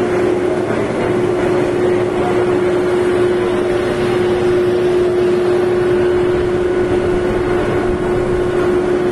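An engine running steadily, with one constant tone over a broad rushing noise.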